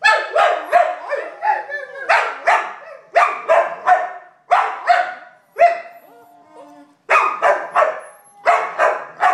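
Dog howling in a long run of short, yelping howl-barks, about two or three a second, with a break of about a second near six seconds in.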